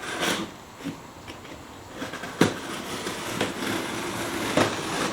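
A cardboard shipping box being cut open with a blade: scratchy cutting and tearing of cardboard, with a few sharp clicks and knocks along the way.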